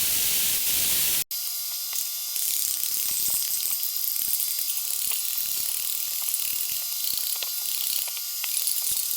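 Stainless-steel metalworking noise: a steady hiss for about the first second, then, after a sudden cut, a crackling hiss full of small clicks that runs on evenly.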